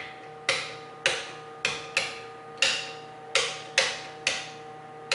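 Front-panel push-buttons of an HP 2631G dot matrix printer clicking, about eight sharp presses at uneven half-second gaps, over a steady hum. The printer does not respond to the buttons, which the owner takes as a sign of a dead processor.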